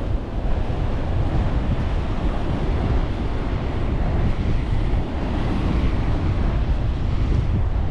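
Strong wind buffeting the microphone with a steady low rumble, over ocean surf washing on the beach.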